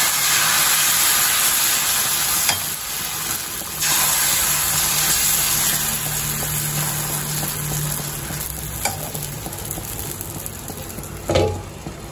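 Rice and tur dal dosa batter sizzling on a hot oiled dosa griddle as a steel ladle spreads it; the sizzle is loudest at first and slowly fades. Near the end there is a short knock as a glass lid is set down over it.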